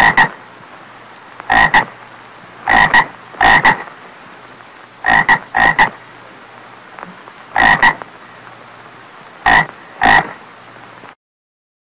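A frog croaking: short loud croaks, mostly in close pairs, repeated every second or two.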